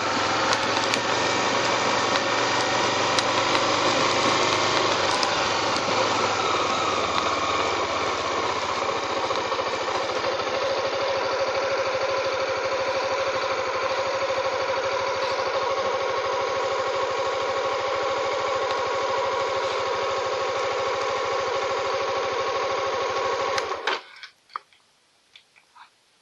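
A vehicle engine running, its pitch shifting a little in the first few seconds and then holding steady at idle. It cuts off suddenly about 24 seconds in, leaving a few faint clicks.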